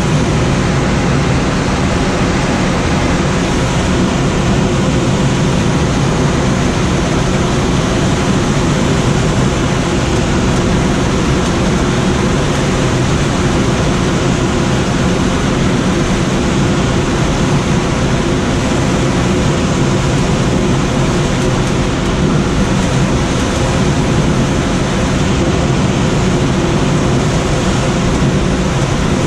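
Steady rush of wind noise from air streaming past a Schweizer SGS 2-32 glider in unpowered soaring flight, even and unchanging throughout.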